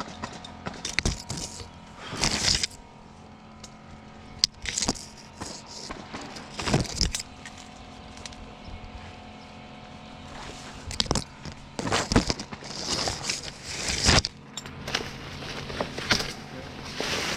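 Irregular scraping, rustling and knocking, a dozen or so short noisy bursts, over a faint steady hum.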